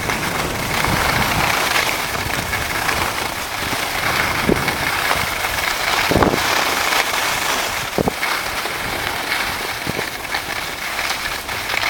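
Skis sliding and scraping over a groomed piste at speed: a steady rushing hiss, with a few brief knocks partway through.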